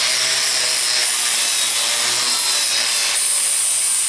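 Angle grinder with a wire cup brush scrubbing the welds on a steel floor pan: a steady, loud scouring hiss over the motor's whine. About three seconds in the sound changes, with a higher whine coming in.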